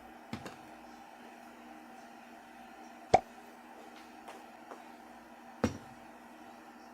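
A steady machine hum with a few sharp knocks over it: two light ones near the start, a loud one about three seconds in and another near the end.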